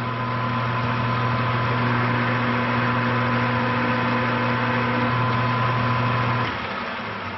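Grizzly G4003G metal lathe running steadily with a hum, its spindle turning the work while a 3/8-16 tap is fed into the hole from the tailstock. About six and a half seconds in the motor is switched off and the lathe coasts down, fading.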